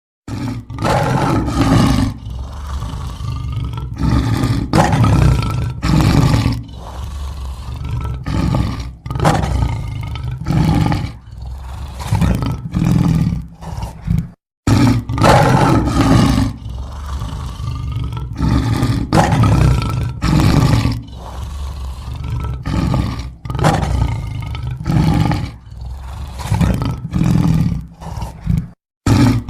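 Lions roaring: a long series of loud roars and grunting calls, one every second or two, broken by a short silence about halfway through and again near the end.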